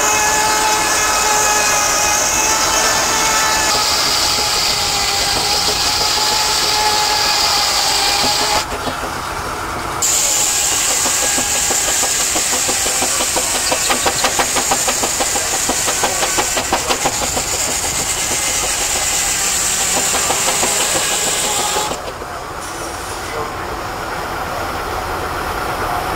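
Steam traction engine running and driving a belt-driven circular saw bench: a steady mechanical clatter with steam hiss, and a fast regular beat in the middle. It dips suddenly quieter twice, once for about a second and once near the end.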